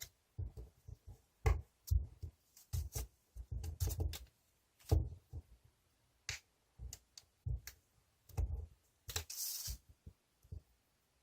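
Colour paper being handled, folded and creased by hand: a run of short, irregular taps and crinkles, with a longer rustle of paper sliding about nine seconds in.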